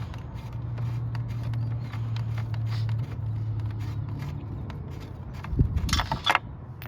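Metal clicks of a lug wrench working the lug nuts off a jacked-up wheel, over a steady low hum, with a loud ringing metallic clank near the end.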